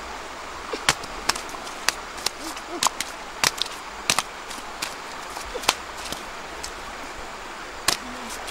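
A large freshly caught fish flopping on wet mud and grass, making a string of sharp, irregular slaps, two or three a second. Under it is the steady rush of the river.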